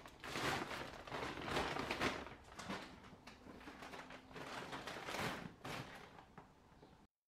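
Woven plastic feed bag rustling and crackling in irregular bursts as it is handled, stuffed with bird netting and pushed onto a shelf; the sound cuts off abruptly near the end.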